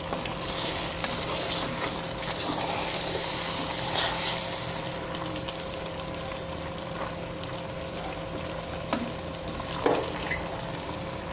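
Mushrooms and vegetables cooking in a stainless steel pot, a steady sizzle and simmer in their own watery juices, while a wooden spatula stirs and scrapes through them, knocking against the pot about four seconds in and again near the end.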